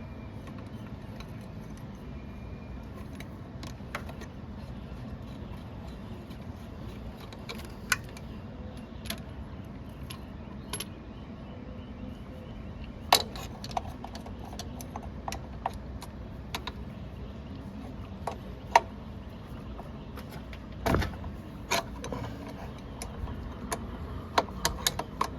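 Metal hand tools clinking and clicking against engine parts in scattered single knocks, more frequent in the second half, over a steady low hum.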